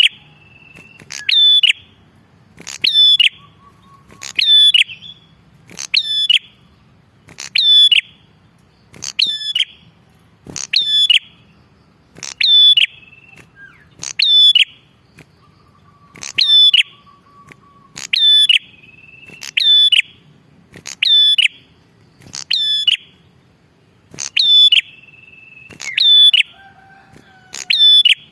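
Prenjak (prinia) singing in full 'gacor' voice: a loud, sharp, high call repeated evenly about every one and a half seconds. Faint whistles from other birds sound between the calls.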